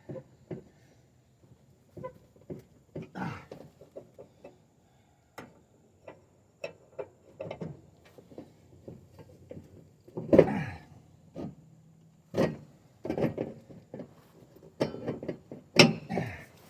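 A man grunting with effort in short, falling-pitched bursts while he forces a wrench to tighten a riding mower's blade nut. Sharp clicks and clinks of the wrench on metal come between the grunts, the loudest click near the end.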